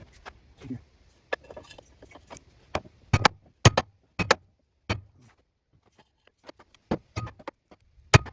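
Hand tools and metal lathe parts knocking and clinking during bearing work on a wood lathe: a string of sharp, irregular knocks with a little ringing, the loudest ones a few seconds in and near the end.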